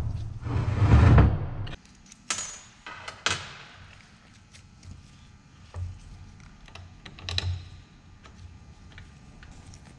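Hand-handling of metal differential parts and bolts on a steel workbench: a noisy rubbing stretch of about a second and a half at the start, then a few scattered sharp clinks and knocks.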